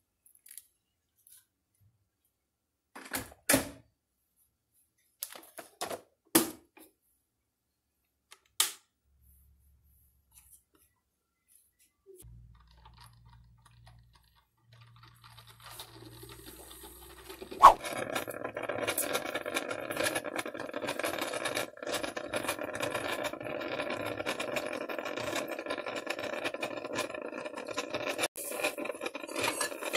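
Oster four-cup drip coffee maker: a few sharp clicks and knocks as it is closed up and switched on, then, from about halfway through, its steady brewing sound fades in and runs on.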